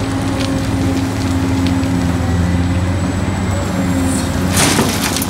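Large Caterpillar hydraulic mining excavator running, a steady diesel drone with hydraulic load as it digs, with a short burst of rough, rattling noise near the end.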